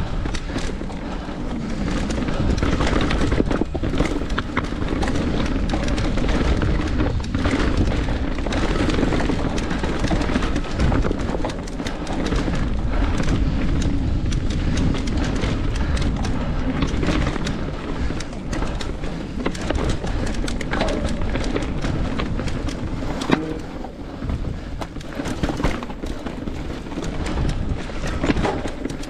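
Mountain bike descending a rough, rocky trail as heard on a GoPro: a steady low rumble of wind buffeting the microphone and tyres rolling over dirt, with frequent short knocks and rattles from the bike over rocks and roots.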